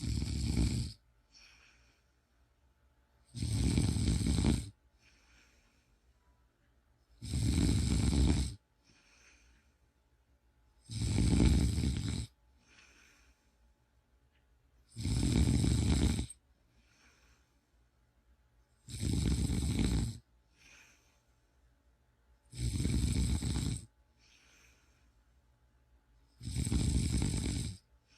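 Snoring in a slow, even rhythm: a loud snore about every four seconds, each lasting a little over a second, each followed by a fainter breath. Eight snores in all.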